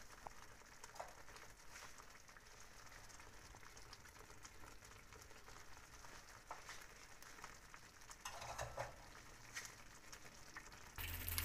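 Faint sizzling and bubbling of tomato sauce simmering around stuffed squid in a frying pan, with scattered small pops. A louder low hum comes in near the end.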